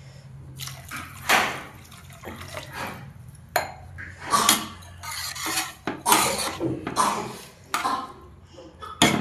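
A metal spoon or ladle scraping and clanking against a metal kadhai as vegetables are stirred in the pan, in irregular strokes over a steady low hum.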